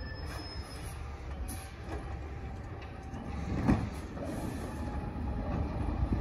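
Pendpac garbage truck's engine running under load while its side-mounted automated arm hydraulics reach out, grab a trash cart and lift it. A single sharp clunk comes a little past halfway.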